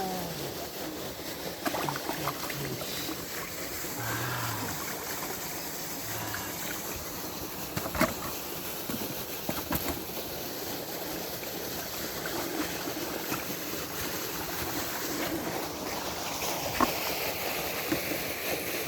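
Water trickling steadily, with a few sharp knocks, the loudest about eight seconds in and another near the end.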